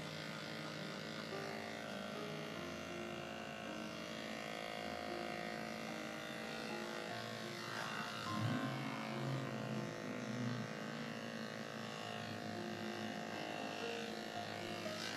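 Electric dog grooming clippers running steadily while shaving off matted dog hair, their motor hum shifting slightly in pitch a few times. There is a louder patch of lower sound about eight seconds in.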